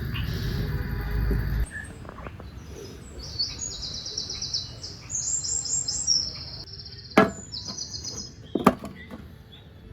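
Songbird trilling in quick repeated phrases, with two sharp knocks about a second and a half apart near the end. It follows a low rumbling noise that cuts off abruptly about two seconds in.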